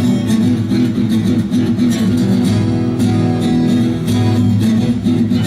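A live indie-rock band playing an instrumental passage between sung lines, with guitar to the fore over a steady beat.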